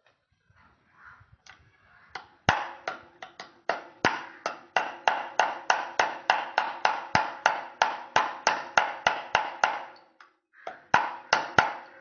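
Metal being struck in quick, even taps, about three a second, each with a short ring; a brief second run of taps comes near the end.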